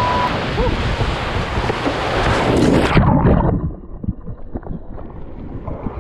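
Whitewater rapids rushing loudly as a wave breaks over a canoe's bow. About three seconds in, the sound turns suddenly dull and muffled as the canoe capsizes and the camera goes into the water, with muffled sloshing and splashing.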